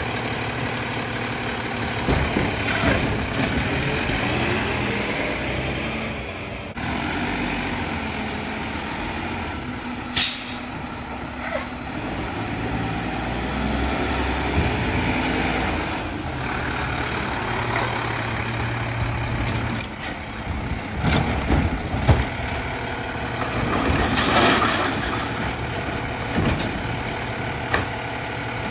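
Mack LEU garbage truck running as its Labrie Helping Hand automated side arm tips recycling carts into the hopper, with the engine and hydraulics working steadily and the truck moving between stops. Air brakes hiss a few times.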